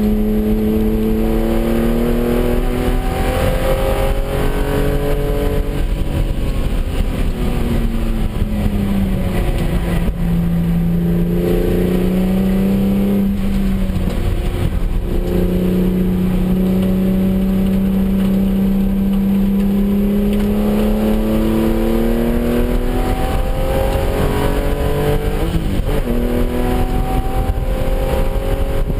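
Porsche 996's flat-six engine driven hard on track, heard from inside the cabin. Its pitch falls under braking about nine seconds in, climbs long and steady under throttle, dips briefly near the end and rises again, over steady road and wind noise.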